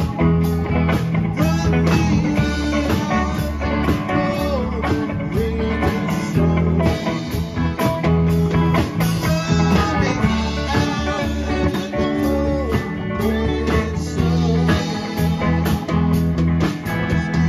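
Live rock band playing: electric guitars, bass, keyboard and drums with hand percussion, with gliding guitar lead lines over a steady bass and drum groove.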